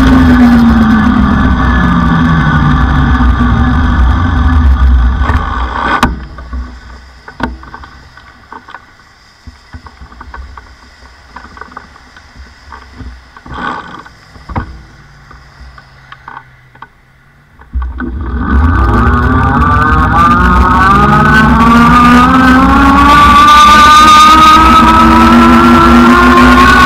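Rad Power electric bike's hub motor whining over wind rumble on the bike-mounted microphone, the whine falling in pitch as the bike slows. About six seconds in it drops away to a quiet stretch with a few clicks and knocks, then about eighteen seconds in the rumble returns and the motor whine rises steadily in pitch as the bike picks up speed.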